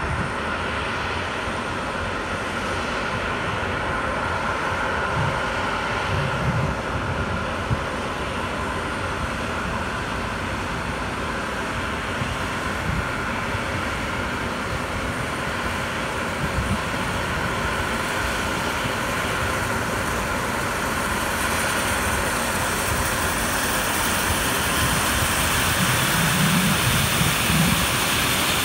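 Steady jet whine and rush from a parked Airbus A321, growing louder and brighter over the last several seconds.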